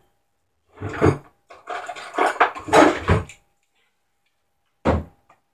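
Spice jars and bottles clattering as a kitchen cabinet is rummaged through for seasonings, with one sharp knock near the end.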